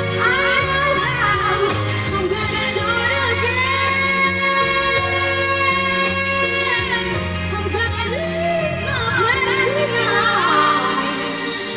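A woman singing over backing music, with long held notes and quick melodic runs.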